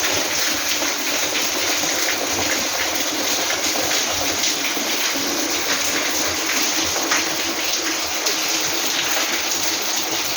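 Heavy rain pouring down steadily, a dense hiss of water with faint scattered drop ticks.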